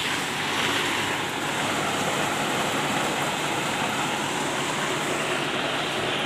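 Maize thresher running steadily under load, driven by a Mahindra 575 DI tractor's diesel engine: a dense, even machine noise.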